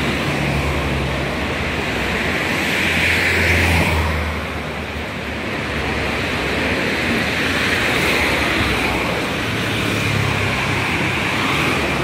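Street traffic: cars passing on the boulevard, tyre hiss on the damp asphalt over a low engine hum, swelling as each car goes by. The loudest pass comes about three to four seconds in.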